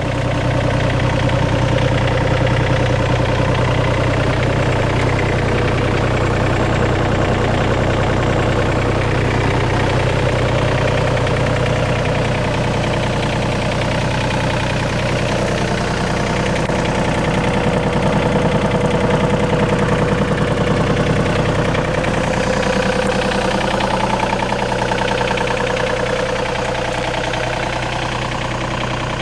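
John Deere 35D mini excavator's diesel engine idling steadily.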